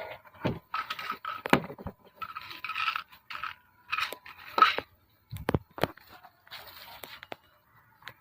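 Handling noise: scattered sharp clicks and short scrapes, with a few brief quiet gaps.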